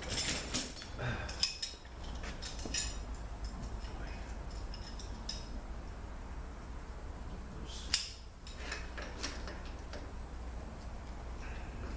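Light metallic clinks and clicks of hand tools and parts as the band servo cover is worked off a 200-4R automatic transmission: a cluster in the first couple of seconds and one sharp click about eight seconds in, over a steady low hum.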